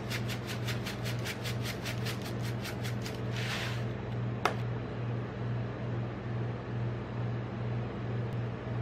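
Sprinkles rattled out of a shaker onto rolled ice cream in a paper cup: a fast, even rattle of about six shakes a second for roughly three seconds. A single sharp click comes about four and a half seconds in. A steady low hum from the ice-roll cold-plate machine runs underneath throughout.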